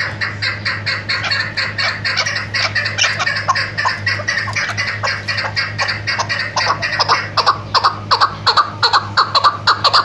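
Chukar partridge (chakor), a female, calling a rapid run of short repeated notes, about five a second, growing louder and sharper over the last few seconds.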